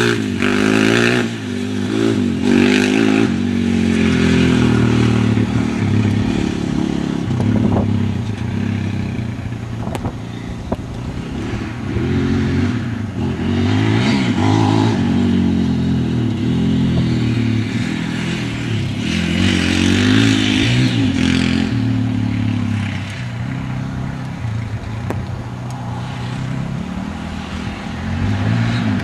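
Polaris Outlaw ATV's KTM 525 single-cylinder four-stroke engine under hard throttle, its pitch climbing and dropping again and again as it accelerates, shifts and backs off.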